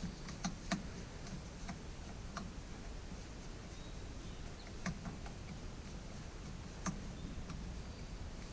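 Scattered light clicks and taps of small chainsaw parts and tools being handled: a cluster in the first couple of seconds, then single clicks about five and about seven seconds in.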